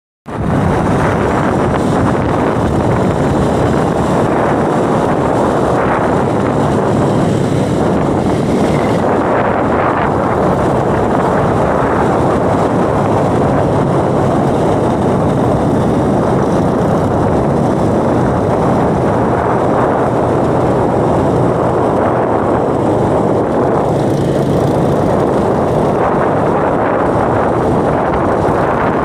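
Steady rush of wind on the microphone of a moving two-wheeler at road speed, with the machine's engine humming faintly underneath.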